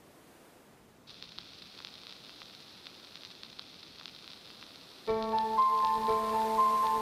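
A faint high hiss with light ticks comes in about a second in, then background music with held, piano-like keyboard notes starts suddenly about five seconds in.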